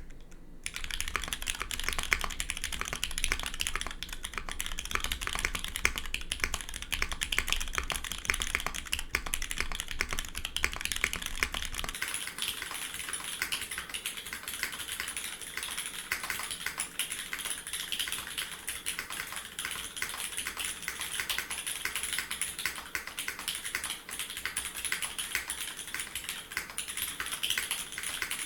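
Continuous fast typing on a custom 65% gasket-mount mechanical keyboard (Drift Mechanics PC Forever 65) with lubed, filmed Cherry MX1A Nixie switches on an aluminium plate and GMK keycaps: a dense, steady run of keystroke clacks.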